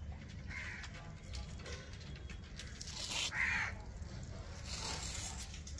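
A crow cawing twice: a short call about half a second in and a louder one around three and a half seconds in.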